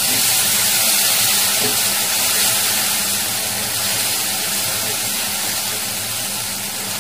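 Water hitting a hot wok of fried spice paste (masala), sizzling and hissing steadily with steam, slowly dying down.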